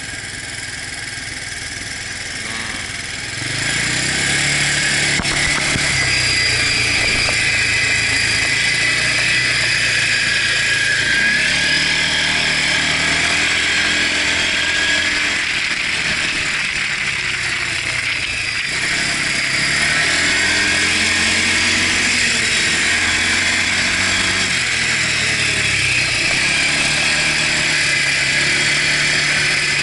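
Quad bike engine running while the quad is ridden over sand, getting louder about three and a half seconds in. Its pitch rises and falls several times with the throttle, over a steady hiss.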